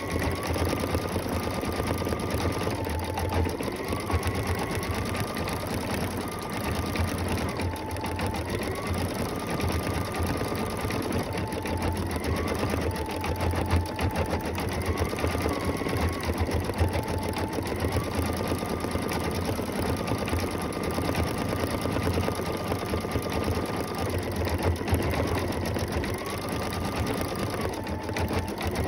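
Embroidery machine stitching steadily, its needle making a fast, even rattle, with a high whine that shifts between two pitches every few seconds.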